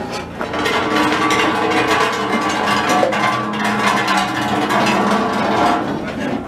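Music playing, with held notes that change every second or so.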